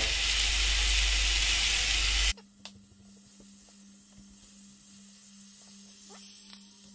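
Saucepan of apples cooked in butter and sugar sizzling loudly as blackberries are tipped in. The sizzle cuts off abruptly about two seconds in. After that there is only a quiet, steady low hum with a few faint knocks as the fruit is stirred with a spatula.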